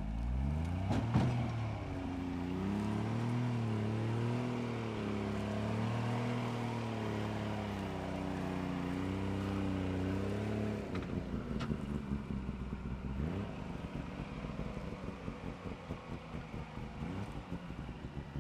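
Suzuki LJ 4x4's small engine revving under load as it crawls over rocks, its pitch rising and falling for about ten seconds, with a sharp knock about a second in. Around the eleven-second mark it drops back to low revs and runs unevenly.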